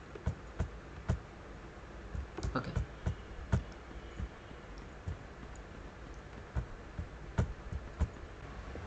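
Computer mouse and keyboard clicks: about a dozen short, sharp clicks at irregular intervals, over a low steady hum.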